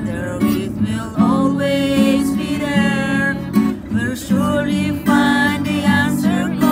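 An acoustic guitar strummed in steady chords, accompanying singing of a Catholic hymn.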